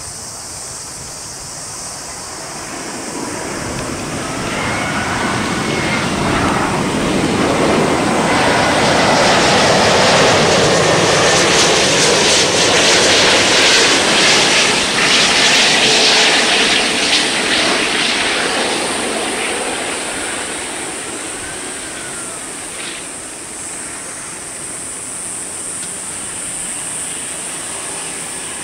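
Airbus A380's four Rolls-Royce Trent 900 turbofan engines on final approach, passing low and close. The jet noise swells to its loudest in the middle and then fades as the aircraft heads for the runway, with a faint engine whine sliding in pitch as it goes by.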